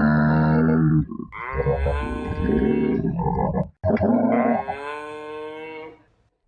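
Cattle mooing: three long, loud calls in a row, separated by short pauses.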